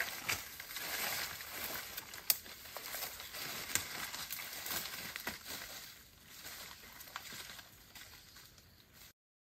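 Footsteps crunching through dry leaf litter and brush, with sharp snaps of twigs, growing fainter as the walker moves away; the sound cuts off suddenly near the end.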